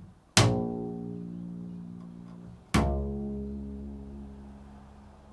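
Two low notes on a plucked string instrument, each with a sharp attack and then left to ring and fade slowly, about two seconds apart.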